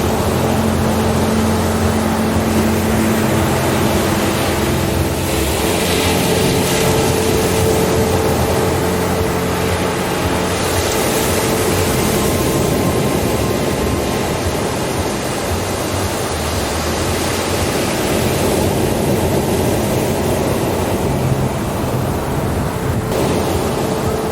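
Ambient relaxation drone: slow, held low tones that shift every few seconds over a steady rushing wash of noise like surf.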